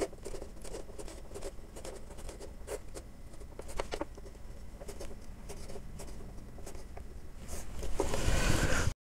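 Chalk on a chalkboard drawing a run of short hatching strokes along a set square, a scattering of brief scratches and taps. Near the end comes a louder scraping rush, then the sound cuts off abruptly.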